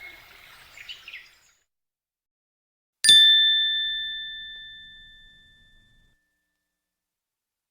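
Birdsong ambience fades out in the first second or so. About three seconds in, a small bell is struck once: a clear ding that rings on and fades away over about three seconds.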